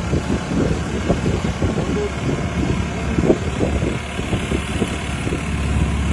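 Motorboat engine running steadily with a low, even rumble.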